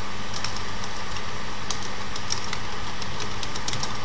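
Computer keyboard keys clicking as a line of text is typed: irregular keystrokes that come thicker in the second half. A steady background hum runs underneath.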